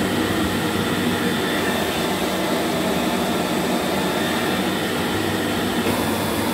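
Electrolux Z1070 Turbo2 Super upright vacuum cleaner running steadily with a constant low hum, fitted with a fresh dust bag and a new drive belt.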